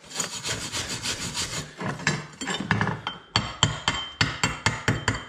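A wire brush scrubbing quickly back and forth over fresh stick-weld beads on steel plate. About three seconds in, it gives way to a chipping hammer tapping the beads with sharp metallic clinks, about four a second, knocking the flux slag off to bare the weld.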